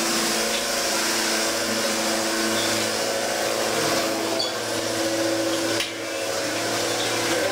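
Electric hand mixer running steadily in a metal bowl, with a steady whine and a short dip about six seconds in.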